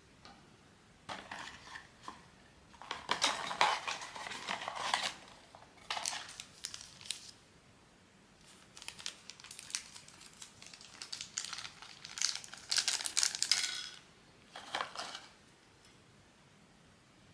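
Plastic blind-box packaging crinkling as it is handled and opened, in several separate bursts with short pauses between them, with light clicks of hard plastic.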